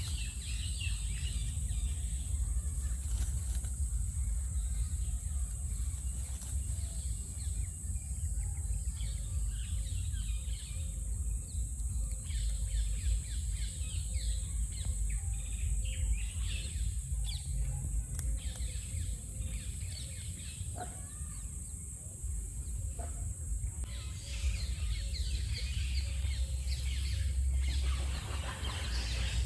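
Outdoor ambience: a steady low rumble and a steady high hiss, with many short bird chirps scattered through it that grow busier near the end.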